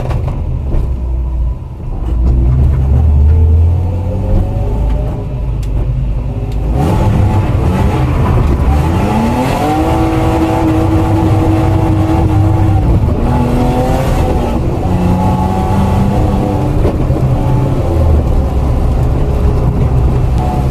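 BMW M52B28 2.8-litre straight-six engine revving hard under load. Its pitch climbs about seven seconds in, holds high and steady for a few seconds, then falls and rises again, over a heavy low rumble.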